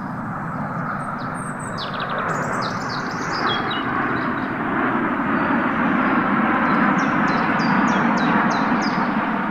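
Jet aircraft flying past, an Airbus A380 airliner with a formation of small jets: a steady rushing roar that slowly grows louder. High, short bird chirps sound above it twice.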